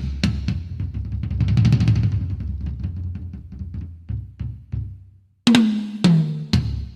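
Drum-heavy sound-check track played over a sound system. Fast drum hits and a snare roll swell and fade out, then after a short break come three heavy hits with deep, pitched bass booms that step down in pitch.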